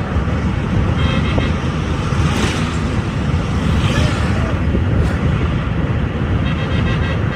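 Steady low rumble of a moving car's engine and tyres on the road, heard inside the cabin.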